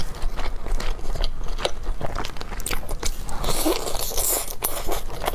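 Close-miked eating: a person biting and chewing a sauced chicken leg, with short wet mouth clicks throughout. A longer, louder bite into the meat comes a little past halfway.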